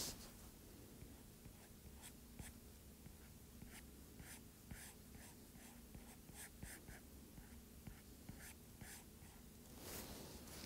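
Stylus tip faintly tapping and scratching on a tablet's glass screen as lines are drawn: short, irregular ticks a few times a second, with a soft swell of noise near the end.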